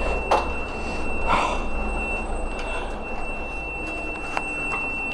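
Vehicle engine idling with a steady low rumble, under a constant thin high-pitched whine; two short sounds stand out, one just after the start and one about a second and a half in.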